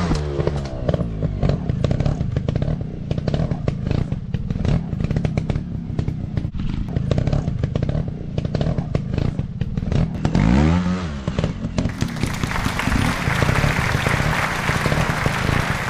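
Off-road motorcycle engine running among clattering knocks, revving up and back down once about ten and a half seconds in.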